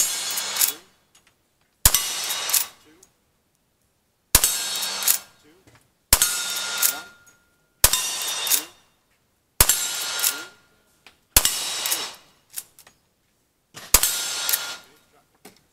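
Rifle fired about eight times in steady succession, roughly every two seconds. Each shot is followed by the ringing clang of a steel target being hit.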